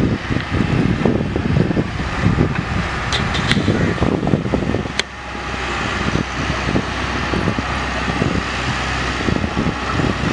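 Massey Ferguson 385 tractor's diesel engine running as it drives, with wind rumbling on the microphone.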